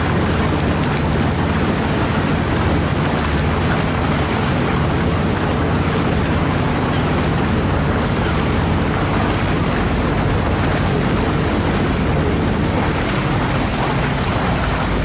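Boat engine running steadily under way, mixed with the wash of water and wind on the microphone.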